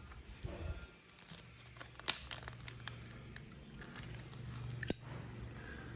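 Metal clicks and clinks of vintage Zippo lighters being handled, with a sharp click and a brief ring about five seconds in, over a faint steady low hum.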